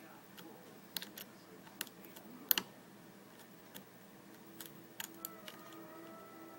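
Lock pick and tension wrench working the spool pins of a Corbin euro cylinder: about a dozen sharp, irregular clicks as pins are lifted and set, the loudest about two and a half seconds in.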